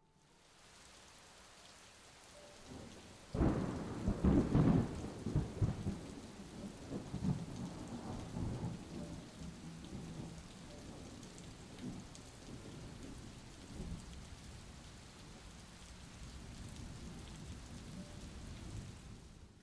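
Steady rain falling, with a clap of thunder about three and a half seconds in that rumbles on and fades over the next five seconds or so.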